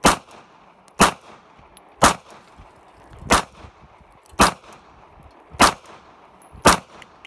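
Seven handgun shots fired one at a time, at about one a second, each a sharp crack.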